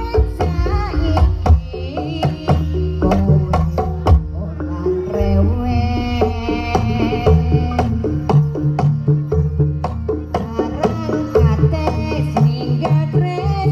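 Jaranan (kuda lumping) dance accompaniment: hand drums beating sharp, quick strokes under a wavering, gliding melody and steady low sustained tones.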